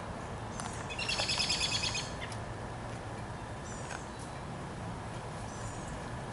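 Small birds calling: a rapid high trill about a second in, the loudest sound, then short high chirps that slide downward every couple of seconds, over a steady low background rumble.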